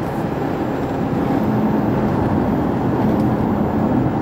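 Inside the cabin of a 2009 Mercedes-Benz S63 AMG driving at highway speed: steady road and tyre noise with the low drone of its 6.2-litre V8.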